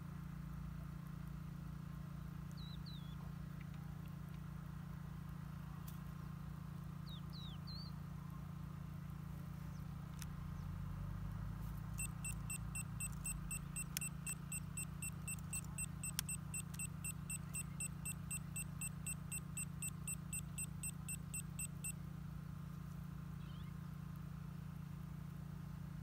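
Steady low hum with a few short bird chirps in the first few seconds. Near the middle, a rapid, even beeping sets in, about four beeps a second, and stops suddenly after about ten seconds.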